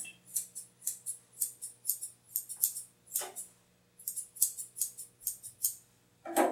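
Curved grooming scissors snipping through a Shih Tzu's foot coat in quick, light strokes, about three snips a second with a short pause about halfway through.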